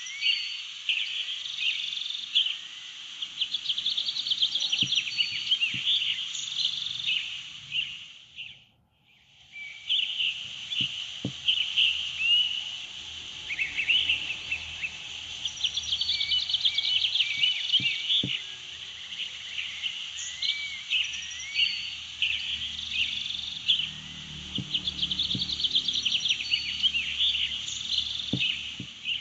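Outdoor nature ambience of many rapid chirps and trills from birds, frogs and insects, fading out about eight seconds in and coming back a second or so later.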